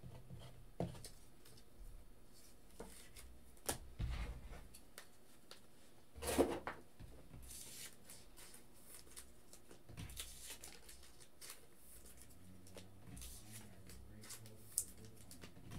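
Trading cards being handled at a desk: scattered light clicks, taps and rustles of cards and plastic toploaders, with a brief louder rustle about six seconds in.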